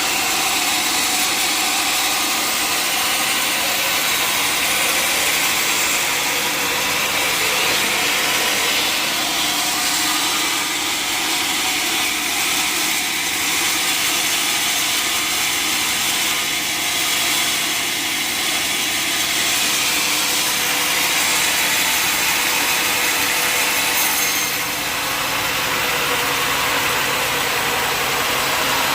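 Sawmill saw cutting steadily through a large log.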